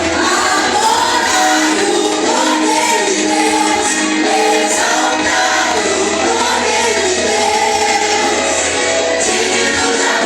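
A group of voices singing a Christian worship song together, with sustained instrumental accompaniment underneath.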